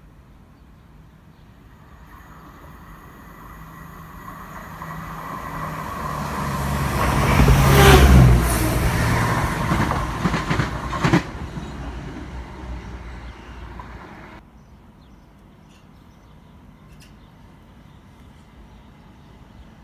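Class 171 Turbostar diesel multiple unit passing: its diesel engine and wheels on the rails grow to a loud peak about eight seconds in, a single sharp knock follows, and the sound dies away by about fourteen seconds.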